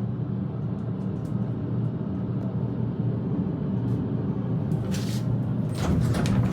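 Hydraulic elevator car travelling between floors, heard from inside the cab: a steady low hum, with a short hiss about five seconds in and the noise growing louder near the end.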